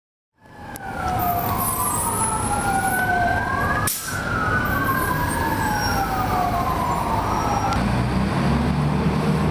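Emergency vehicle sirens wailing, two pitches sweeping up and down past each other, starting about half a second in. The wail stops shortly before the end, leaving a low steady hum of traffic.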